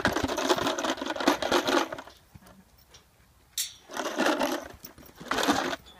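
Metallic rattling and jangling in three bouts, a long one at the start and two shorter ones later.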